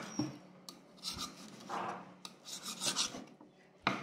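Knife blade slicing grilled pork and scraping across a wooden cutting board, in several uneven strokes.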